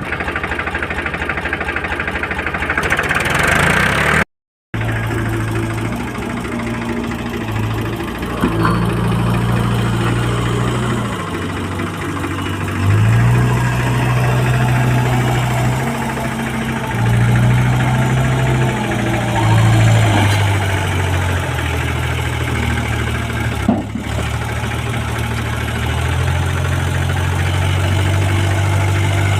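Heavy diesel engine of earthmoving machinery running, its pitch stepping up and down as the load changes. The sound cuts out completely for a moment about four seconds in.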